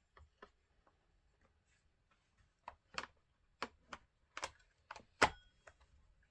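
A string of sharp clicks and light knocks from handling a small Stihl MS 151 TC top-handle chainsaw while its chain brake is checked. The knocks grow more frequent in the second half, and the loudest click comes near the end.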